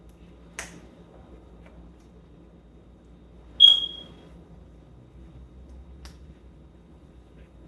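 A few sharp clicks over quiet room tone. The loudest, a little past the middle, carries a brief high ring.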